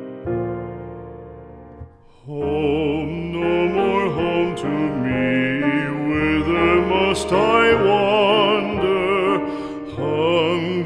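Background music: piano chords, then from about two seconds in a classically trained voice singing with vibrato over piano accompaniment.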